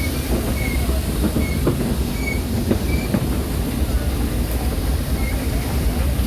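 Ooty toy train of the Nilgiri Mountain Railway running, heard from a passenger carriage: a steady rumble with scattered knocks and several short high squeaks.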